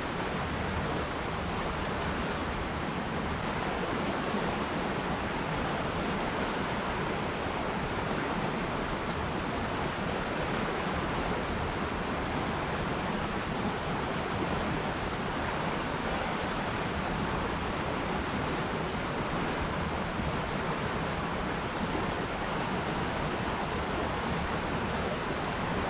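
River water rushing and splashing over rocks in a steady, even flow.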